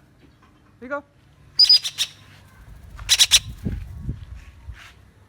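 Red-breasted parakeet giving harsh squawks in two short bursts, about a second and a half in and again about three seconds in, followed by a couple of low thumps.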